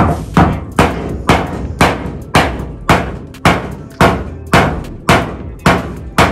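A hammer striking a hardwood block held against the edge of a steel body panel, driving the sheet metal into shape. The sharp knocks come in a steady run, about a dozen at roughly two a second.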